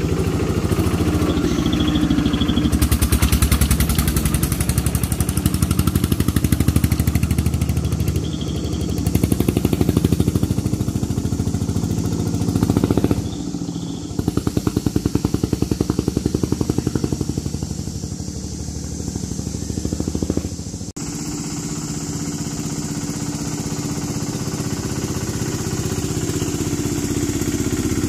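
Single-cylinder diesel engine of an i-taen, a Thai homemade farm vehicle, chugging steadily with a fast, even putt-putt as it drives along. The sound changes abruptly twice, at about a third and two-thirds of the way through.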